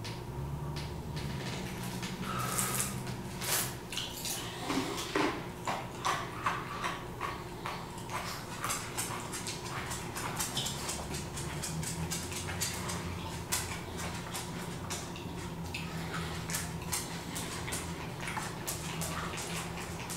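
A dog moving about, with many small clicks and taps that come thicker in the second half, over a steady low hum.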